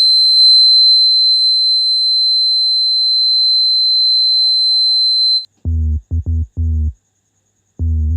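Buzzer of a homemade BC547 rain-detector alarm sounding one steady, high-pitched beep for about five and a half seconds, then cutting off suddenly. After it, short low electronic bass notes come in quick groups of four: electronic music starting.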